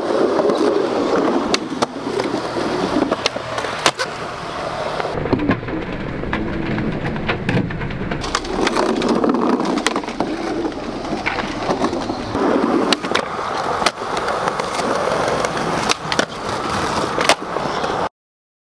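Skateboard wheels rolling over pavement and wooden boards, a steady rumble broken by frequent sharp clacks of the board striking the ground. The sound cuts off abruptly near the end.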